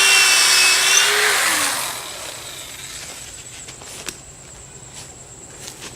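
Power drill with a 7/32-inch bit boring a pilot hole in wood: the motor whines steadily, then is released about a second and a half in and spins down with a falling pitch.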